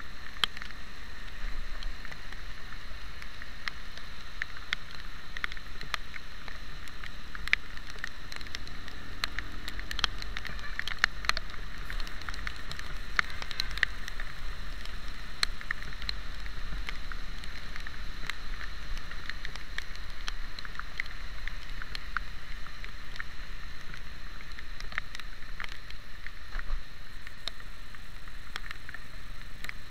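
Rain tapping irregularly on a motorcycle-mounted camera while riding, over a steady hiss and low rumble of wind and tyres on a wet road.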